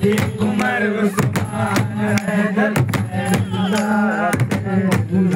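A group of men chanting a devotional ratib in unison over sharp percussive strikes about twice a second, from large hide-headed hand drums and clapping.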